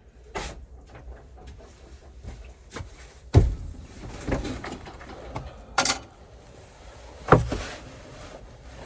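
Knocks and scraping from handling boards on a wooden whelping box, with a few sharp knocks, the loudest about a third of the way in.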